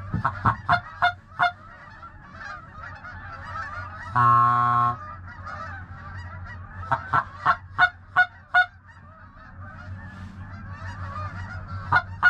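Goose honking: quick runs of short, sharp honks and clucks near the start and again about seven seconds in, one longer held honk about four seconds in, over a steady background of goose chatter.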